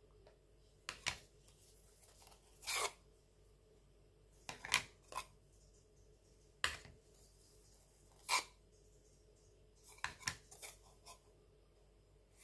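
Intermittent rustling and light clicks of small packaged craft items being handled and shifted: about a dozen short, separate sounds with quiet gaps between them.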